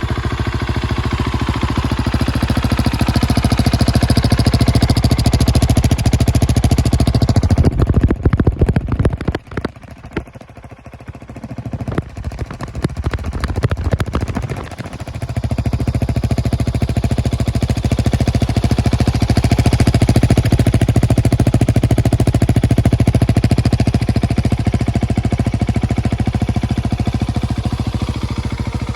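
Husqvarna 701 Supermoto's single-cylinder engine running steadily through a Remus aftermarket exhaust. The sound falls away sharply about nine seconds in and comes back at full level about six seconds later.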